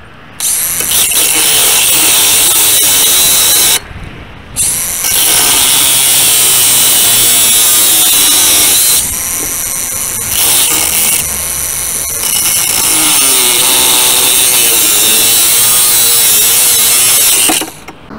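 Cordless angle grinder with a cut-off disc cutting through a rusty steel pipe, the motor's pitch wavering under load. It starts a moment in, stops briefly about four seconds in, cuts on with two short drops in level, and shuts off near the end as the pipe parts.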